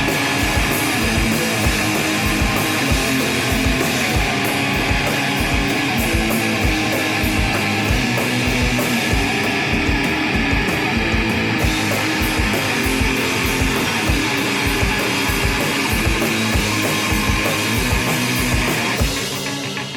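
Live rock band playing loud and heavy, distorted guitars over a fast, steady drum beat; the sound thins a little near the end.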